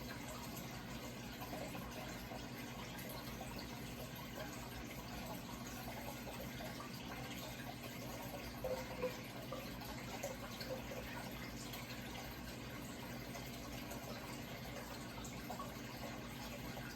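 Running water trickling and burbling steadily, with a few slightly louder splashes about nine seconds in, over a low steady hum.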